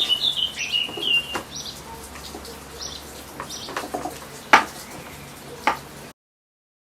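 A bird chirps a quick run of high notes, followed by a few scattered sharp clicks and knocks, the loudest about four and a half seconds in.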